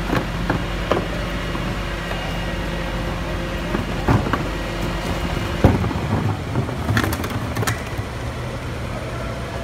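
Garwood rear-loading garbage truck running at idle with a steady hum, while plastic wheelie bins are wheeled and knocked about beside it. There are several sharp clatters and thumps, and the truck's low hum shifts about six seconds in.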